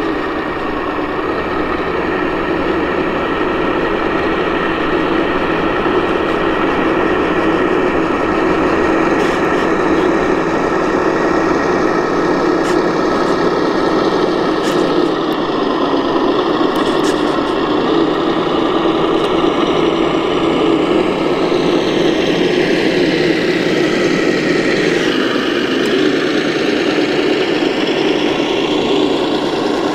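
Reely electronic sound module in a 1:12 scale RC M983 HEMTT 8x8 truck playing a simulated heavy truck diesel engine, running steadily through its small speaker. In the last third a higher whine dips in pitch and climbs again.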